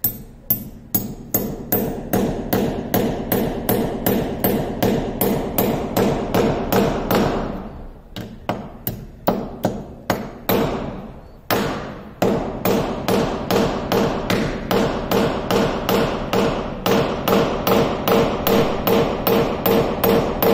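A ball-peen hammer tapping a screw into a wall: steady, even blows about three a second, each with a slight ring, with two short breaks midway.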